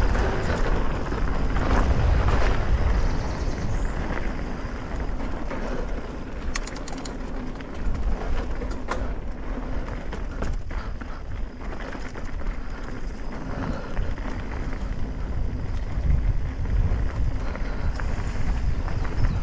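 Wind buffeting the microphone, with the tyre and frame noise of a mountain bike riding down a dirt trail. The noise surges and eases, and a brief run of light clicks comes partway through.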